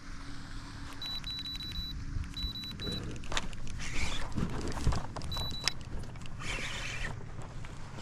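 A spinning reel being cranked against a hooked fish, a small Goliath grouper, with short runs of quick high ticking from the reel. A few louder swishes come in the middle and again near the end.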